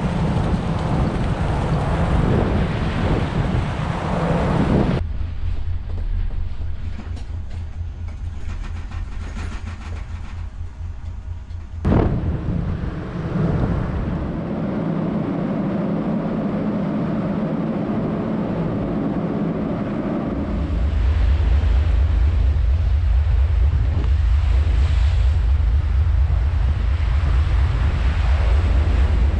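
Heavy, steady rumble of the icebreaker USCGC Healy under way, its hull grinding and crushing through Arctic sea ice, with water rushing along the hull and wind on the microphone. The sound changes abruptly a few times, with a sharp click about twelve seconds in, and the deep rumble is strongest near the end.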